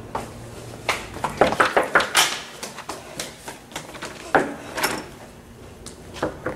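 Close, irregular clicks and knocks, then a metal doorknob turning with its latch clicking sharply as a wooden door is opened.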